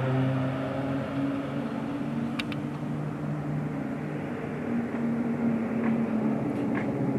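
Formation of nine Pilatus PC-7 turboprop trainers flying past: a steady, layered propeller drone whose pitch shifts slowly.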